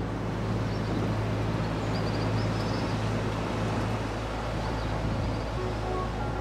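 A small sailboat's inboard engine running under way, with a steady low drone, over the wash of water along the hull.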